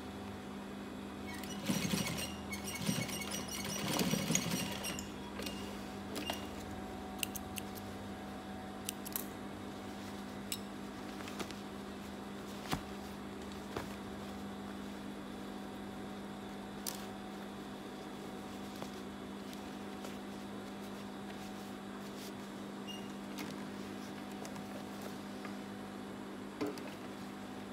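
Steady hum from a Gemsy industrial sewing machine's running motor as denim is handled and shifted under the presser foot. The rustling and clicks are loudest about two to five seconds in, then thin out to scattered light clicks.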